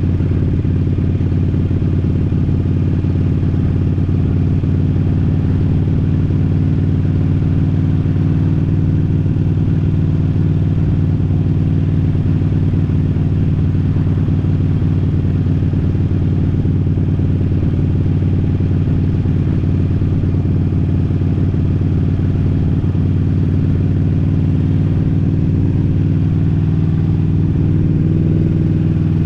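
Harley-Davidson V-twin motorcycle engine running steadily at cruising speed, its low note holding an even pitch throughout.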